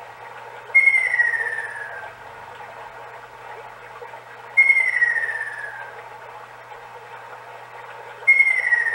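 Seiko FS510B wall clock's hourly bird chime playing a recorded ruddy kingfisher call through its small speaker: three descending whistled calls about four seconds apart, the last one cut off at the end. Under them runs the clock's recorded babbling-stream sound as a steady hiss.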